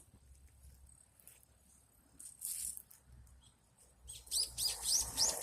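Small bird calling outdoors: a brief high, rasping call about two and a half seconds in, then a quick run of short high chirps, about five a second, near the end.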